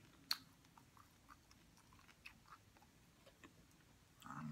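Faint chewing and small wet mouth sounds of people eating chicken wings, with scattered soft ticks and one sharp click about a third of a second in. A short low hum comes near the end.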